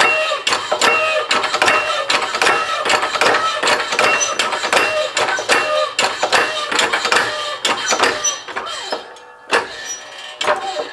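A shop press working a drift through a Ford Model A distributor body to push out a worn shaft bushing: rapid metallic clicking, about three a second, each click leaving a short metallic ring. The clicking thins out about nine seconds in.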